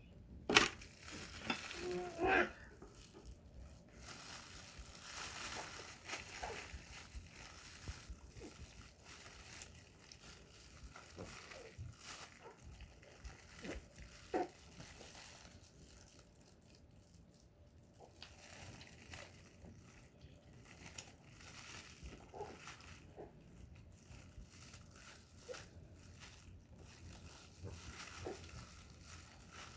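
A small child eating braised pig's trotters (jokbal), gnawing and chewing with soft clicks, smacks and rustling, and a couple of brief vocal sounds about 2 and 14 seconds in.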